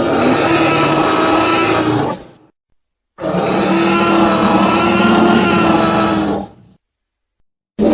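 Stock dinosaur roar sound effect, heard twice: a roar of about two and a half seconds, then after a second of silence a longer one of about three and a half seconds, each holding a steady pitch and cutting off to silence. A third roar begins at the very end.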